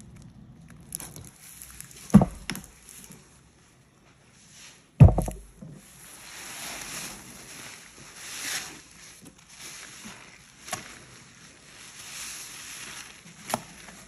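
Rubber-gloved hands squeezing and working a wet, powder-coated sponge in thick foamy cleaning paste, each squeeze a swell of wet, hissing noise. Two loud thumps come about two and five seconds in.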